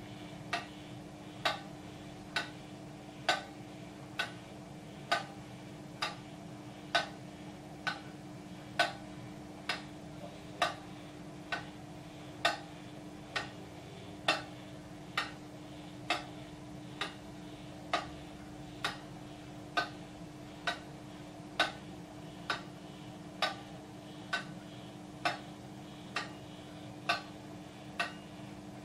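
Cylinder escapement ticking: the brass escape wheel's teeth strike and drop off the steel cylinder, giving sharp, evenly spaced ticks a little faster than one a second, some louder than others. A steady low hum runs underneath.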